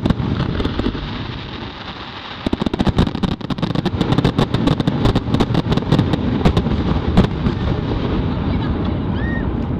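Fireworks finale barrage: a steady low rumble of bursts, then from about two and a half seconds in a dense run of sharp cracks and pops, many to the second.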